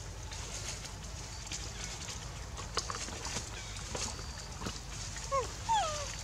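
Steady forest ambience with a few faint clicks, then, about five seconds in, three or four short calls that slide down in pitch: a macaque's whimpering coos.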